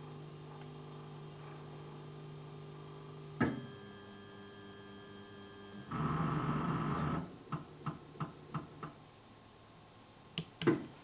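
Form1 SLA resin 3D printer going through a peel step: about a second of motor whir, then a run of about five quick clicks and two sharp clicks near the end, over a steady low hum.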